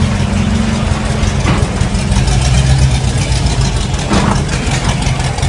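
1968 Dodge Charger R/T's V8 idling as the car rolls slowly, a loud, low, steady engine note that settles lower a little after two seconds in.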